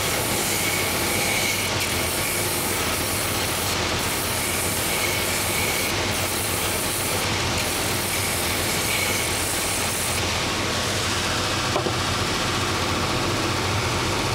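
Purpose-built last-making belt sanding machine running steadily, its coarse 24-grit, 3-inch belt grinding away the wood at the front of a wooden shoe last. A single brief knock near the end.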